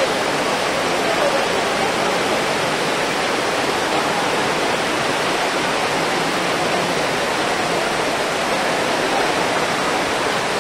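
Heavy rain falling on a tent canopy, with water running off it and across the ground: a loud, steady hiss.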